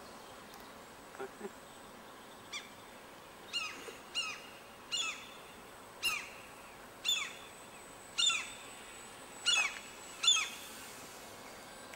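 Common gulls giving about ten short, falling alarm calls, roughly one a second, getting louder toward the end as they mob a model aircraft.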